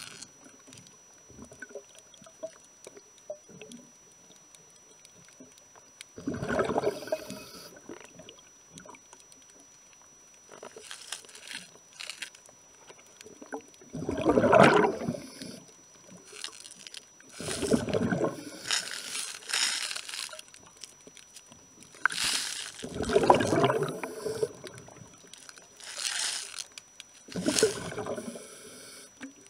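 A scuba diver's regulator underwater: exhaled air bubbling out in bursts of a second or two, every few seconds.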